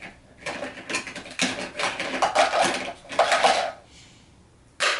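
Small toy rocks clattering as they are dropped into a toy dump truck's bed: a rattling run of many small knocks lasting about three seconds, then one short rattle near the end.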